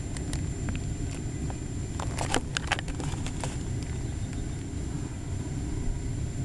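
Wind buffeting the microphone as a steady low rumble, with a handful of light clicks and knocks about two to three and a half seconds in.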